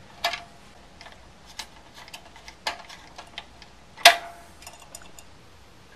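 Hand-held Phillips screwdriver snugging the set screws on a street-light post top fitter: irregular small clicks and ticks, with one sharper click about four seconds in.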